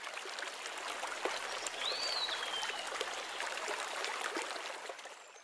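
Steady trickling, water-like rushing, flecked with small ticks. About two seconds in there is one short whistle that rises and then falls. The sound fades out near the end.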